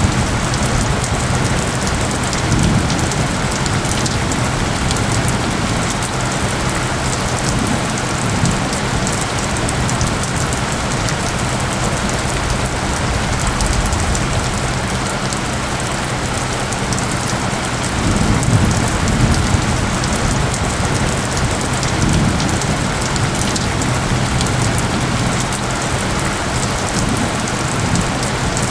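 Steady, dense rain pattering, with a steady low tone underneath: the track's isochronic tones. Low rumbles swell briefly a few times, once near the start and twice more past the middle.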